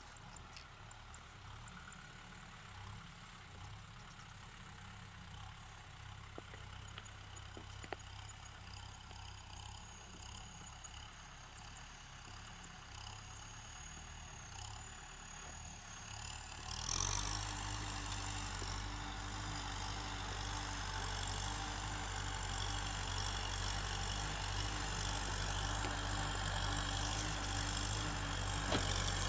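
Kubota tractor's diesel engine running, low and fairly quiet at first, then suddenly louder a little past halfway and staying loud and steady.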